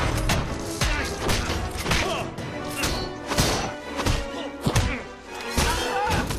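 Film fight sound effects: a rapid series of punches, thuds and crashes, several a second, over an orchestral score.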